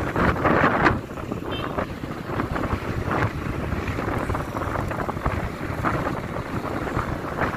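Wind rushing and buffeting against the microphone of a phone carried on a moving vehicle, over engine and road noise. It is loudest in the first second.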